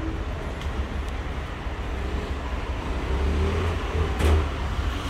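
Steady low rumble and hum of a busy kebab shop kitchen, with a brief clatter about four seconds in.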